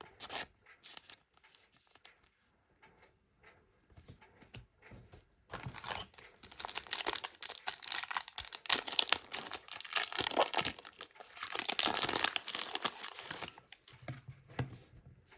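A foil trading-card pack wrapper being torn open and crinkled. A few light handling clicks come first, then dense tearing and crinkling runs from about five seconds in until shortly before the end.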